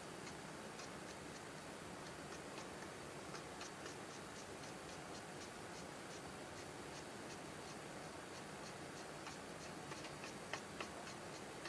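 Faint, steady, rapid ticking, about three to four ticks a second, over a low hiss, with a couple of louder taps near the end.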